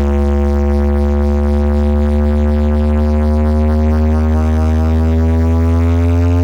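A single sustained deep synth bass tone played loud through OHM TRS bass cabinets, its pitch slowly rising toward the end.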